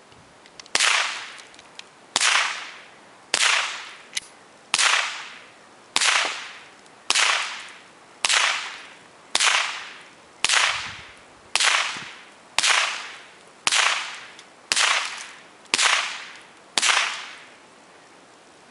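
Gunshots: fifteen shots fired at a steady pace of about one a second, each trailing off with a short echo.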